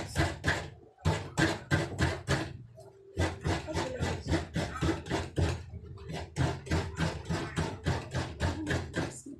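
A half coconut being grated on a kabayo, the Filipino bench-mounted coconut grater: the shell's flesh is scraped against the serrated blade in quick, even strokes, about four or five a second. There are two short pauses, about a second in and around three seconds in.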